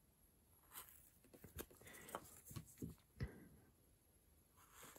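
Faint scraping and clicking of a small hand gouge cutting into wood: a quick series of short cuts in the first three seconds or so, digging out a hole.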